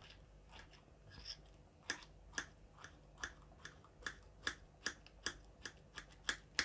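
Roasted brinjal being mashed fine, a utensil tapping through the soft flesh against the surface beneath. A few faint taps early, then a steady run of short, quiet taps about two or three a second from about two seconds in.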